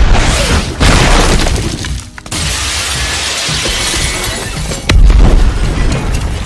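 Film fight sound effects: armoured suits crashing, with heavy thuds at the start and again about five seconds in and a long spell of shattering glass in between, under background music.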